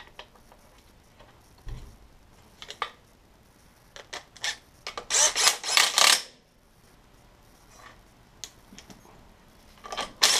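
Cordless screwdriver running bellhousing bolts into a transmission case, in two bursts of rapid clicking about five seconds in and again near the end. The clicking comes as the driver stops short of full torque on the bolts. A few scattered light clicks of tools and bolts come before the bursts.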